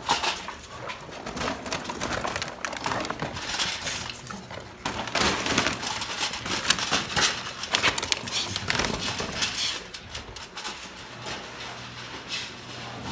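Dry dog kibble rattling as it is poured from a bag, with dogs eating and jostling at the food: irregular crackles, rattles and scrapes, busiest in the middle.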